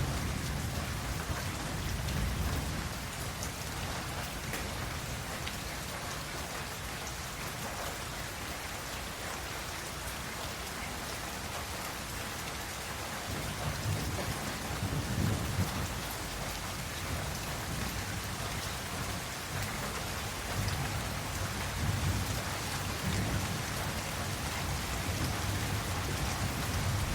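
Steady rain falling, with low rolls of thunder rumbling in about halfway through and again near the end.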